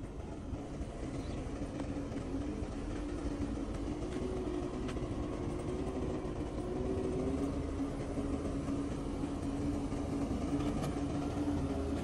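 Heavy diesel engine running steadily at a distance, with a low rumble and a wavering hum that slowly grows louder.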